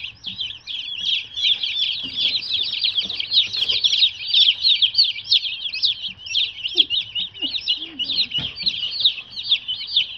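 A brood of about thirty day-old meat chicks peeping constantly, many shrill peeps overlapping several times a second.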